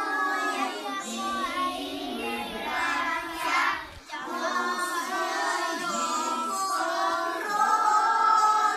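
A group of young children singing a song together in unison, with a short pause for breath about four seconds in.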